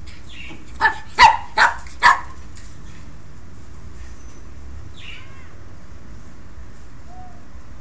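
Pekingese dog barking: four short, sharp barks in quick succession in the first two seconds or so.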